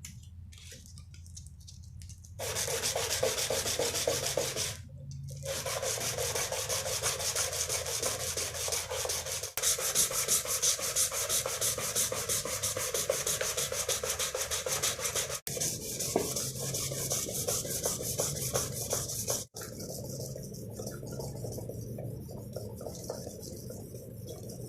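Steel blade of a nakiri kitchen knife being rubbed by hand with an abrasive in fast back-and-forth scrubbing strokes, heard as a dense scratchy rasp. It breaks off sharply several times between short takes and is quieter for the first couple of seconds.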